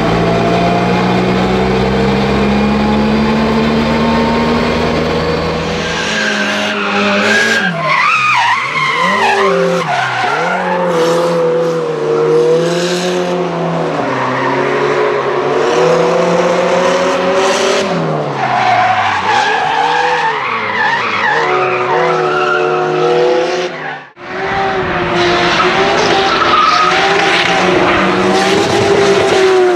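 Inside the cabin, the Nissan 200SX S13's swapped R35 GT-R twin-turbo V6 runs with a slowly rising pitch. After about six seconds the sound changes to drift cars heard from trackside, engines revving up and down with tyres squealing, cutting out for a moment about three-quarters of the way through.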